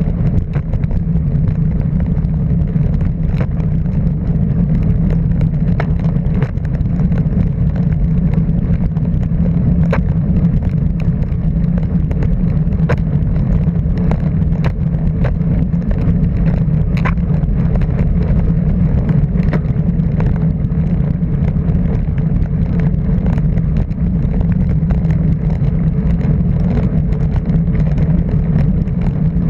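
A motor vehicle's engine running at a steady, unchanging pitch for the whole stretch, with a continuous noisy rush and scattered short clicks.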